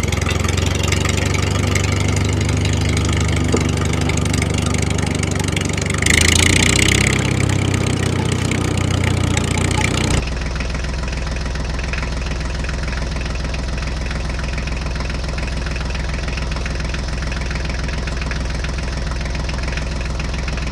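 Tractor engine idling with a steady knock. About six seconds in comes a short, louder burst of hiss. Near the halfway point the sound cuts abruptly to a slightly quieter, steady engine run.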